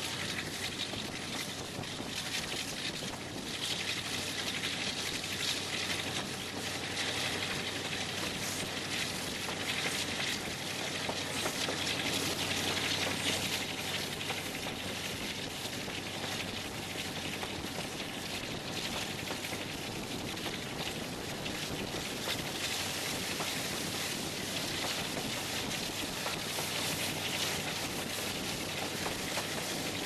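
Steady running noise of a train hauled by Class 35 Hymek diesel-hydraulic locomotive D7076: a constant rush of wind and wheel noise at an open window, with the locomotive's engine steady beneath it. It swells a little about halfway through.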